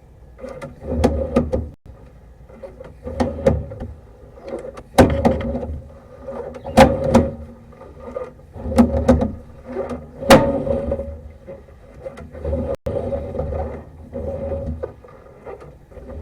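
Sewer inspection camera's push cable being fed by hand into a drain cleanout: repeated pushes roughly every one to two seconds, each a rumbling scrape with sharp clicks and knocks, over a faint steady hum.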